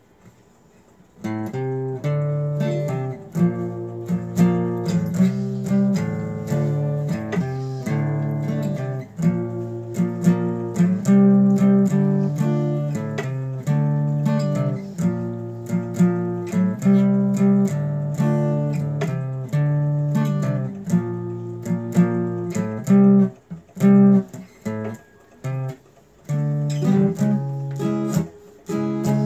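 Acoustic guitar strummed in steady chords, starting about a second in. The strumming breaks up into a few choppy strokes for a couple of seconds about two-thirds of the way through, then picks up again.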